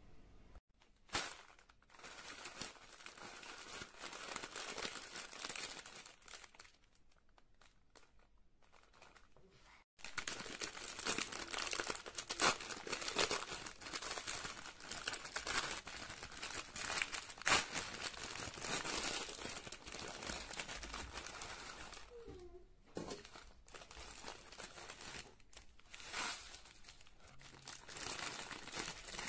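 Plastic instant-noodle packet crinkling and tearing open as hands work it, in a dense run of crackles that lasts about twelve seconds from just after the halfway point, with another burst near the end. Before it come quieter handling sounds with one sharp click about a second in.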